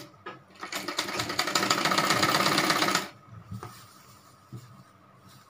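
A sewing machine stitching down a folded waistband seam: a short click at the start, then a rapid, even run of stitches for about two seconds that stops abruptly.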